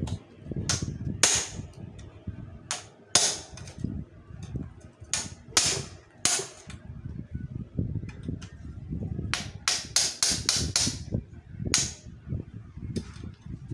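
Hammer blows on a sharpened screwdriver bit, driving the bamboo-type (roller) steering bearing cup out of a motorcycle's steering head: sharp metal-on-metal strikes, about fifteen at uneven spacing, with a quick run of six near the end.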